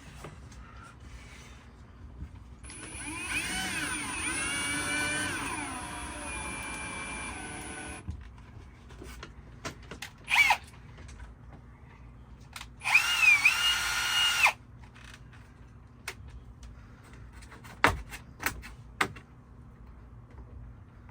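Electric drill boring screw holes through wood paneling into the boat's fiberglass. The first run lasts about five seconds with a whine that shifts in pitch, followed by a brief burst and a second run of under two seconds. A few sharp clicks come near the end.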